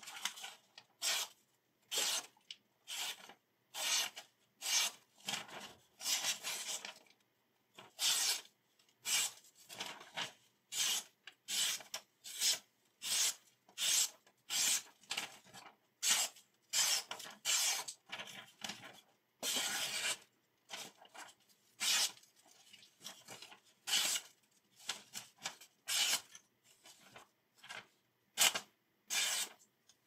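Ganzo folding knife, freshly sharpened, slicing through a sheet of paper stroke after stroke: short rasping cuts, about one or two a second and irregular, with one longer cut about twenty seconds in. The slicing is a paper test of the new edge's sharpness.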